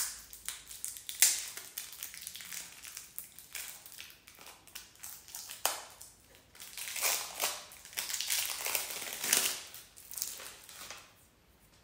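Plastic shrink-wrap crinkling and crackling in the hands as it is stripped off a new deck of cards, loudest from about seven to nine and a half seconds in.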